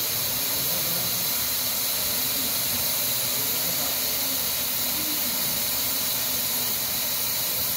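Handheld hot-air vinyl welding gun blowing with a steady hiss while its nozzle lays a welding rod into a vinyl floor seam.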